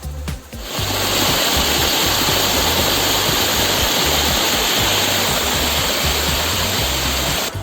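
Waterfall rushing: a dense, steady wash of falling water that comes in about a second in and cuts off abruptly just before the end, over the low bass notes of background music.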